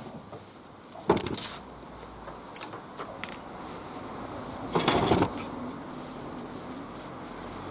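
Two short metallic clatters, about a second in and again near five seconds, with a few sharp clicks between. A low hum of road traffic rises near the end.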